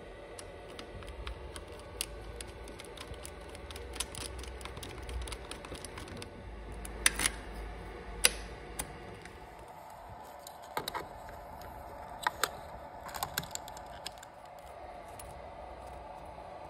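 Small scattered clicks and metal taps of a screwdriver and fingers working at a motorcycle's ignition switch and wiring, with a few sharper clicks in the middle, over a faint steady hum.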